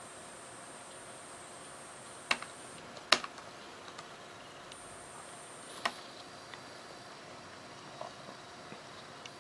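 Sharp clicks of a laptop's controls being operated, three louder ones about two, three and six seconds in, the middle one loudest, with fainter ticks later, over a steady faint hiss.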